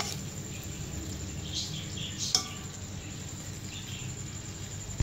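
A metal spoon scraping against a steel cooking pot as boiled rice is spooned in, with one light metallic clink about halfway through.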